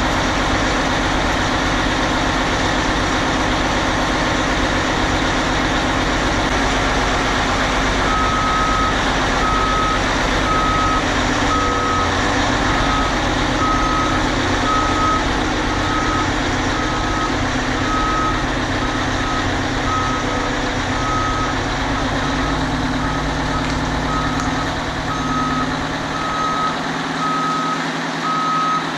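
1985 Peterbilt dump truck's Detroit Diesel 8V92 two-stroke V8 running steadily, with the truck's reverse backup alarm starting about eight seconds in and beeping evenly, a little over once a second, as the truck backs up.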